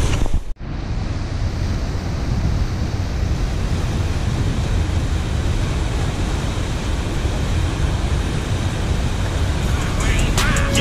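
Turbulent water rushing below a dam spillway: a steady whitewater roar that cuts out briefly about half a second in and then runs on. Music comes in near the end.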